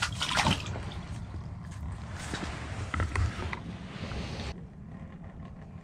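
Light clicks and creaks of fishing gear being handled by hand, over a low, steady rumble.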